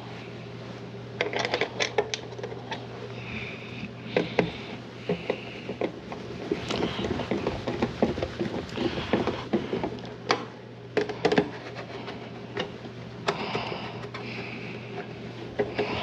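Hard plastic parts of a Miele canister vacuum being handled and fitted: a busy string of clicks, taps and light rattles, over a steady low hum.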